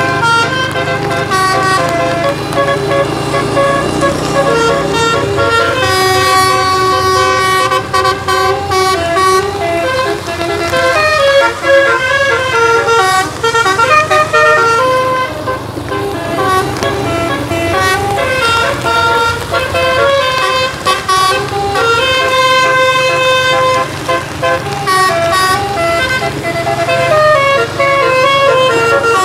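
Telolet (basuri) multi-tone musical horn on a coach bus, played at length as a quick run of many stepped notes, with a short lull near the middle. A low steady rumble runs underneath.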